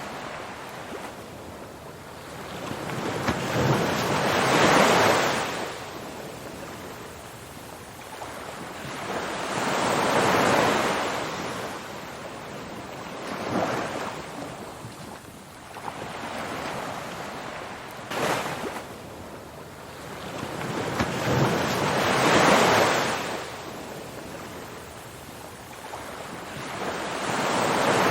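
Ocean waves washing onto a shore: a steady hiss of surf that swells and falls away again every few seconds, with about five larger surges and a few smaller ones between.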